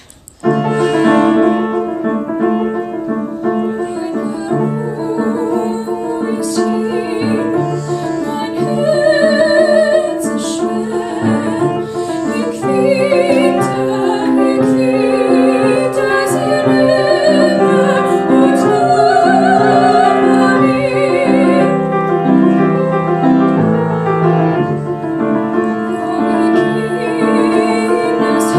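A piano starts playing about half a second in, and a girl's solo singing voice with vibrato joins it after about eight seconds, in a classical style.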